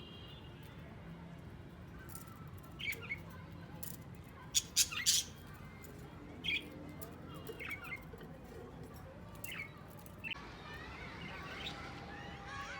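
Ringneck parakeets giving short, harsh squawks now and then, the loudest few close together about halfway through.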